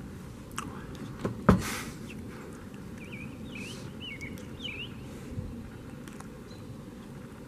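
Birds chirping in short rising-and-falling calls over a steady low background noise, with one sharp knock about a second and a half in.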